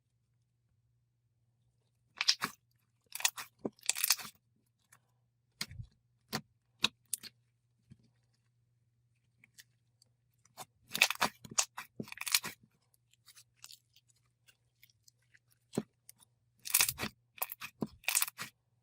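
Crackling, crunchy handling noises in short bursts with separate clicks, coming in three clusters: about 2 to 4 seconds in, around 11 to 12 seconds in, and near the end.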